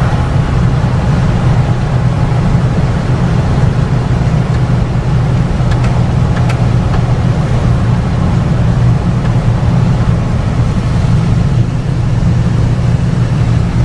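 Steady engine and road drone of a moving car, heard from inside the cabin, with a strong low hum.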